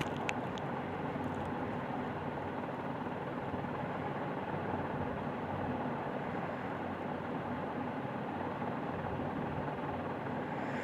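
Steady, even background noise with no clear source, with a few light clicks near the start.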